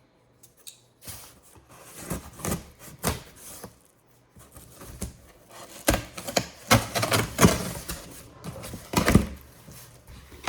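Large cardboard shipping box being cut open with a box cutter and its flaps pulled back. Irregular scrapes and sharp knocks of cardboard start after a quiet first second and grow busier and louder in the second half.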